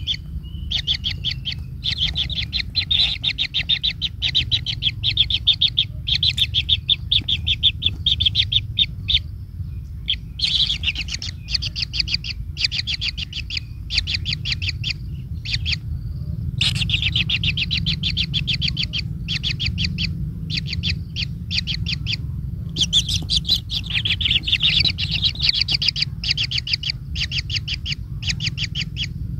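A bird calling in rapid trills: quick series of sharp, high notes, about ten a second, in bouts several seconds long with brief pauses between, over a steady low background hum.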